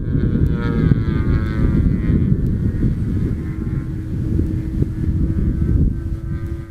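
Engine and propeller of a radio-controlled Yak-55 aerobatic model buzzing in flight overhead, its pitch shifting slightly as it flies. Heavy wind rumble on the microphone underneath.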